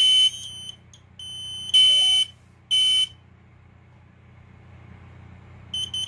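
Kidde combination smoke and carbon monoxide alarm sounding its self-test: loud, high-pitched half-second beeps about a second apart that stop about three seconds in. Near the end a quicker run of short beeps begins, the alarm moving on to the carbon monoxide part of the test.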